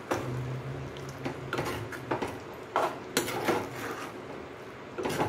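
Steel ladle stirring thick chicken curry in a steel pot, scraping and clinking against the pot's sides at irregular intervals, about eight times.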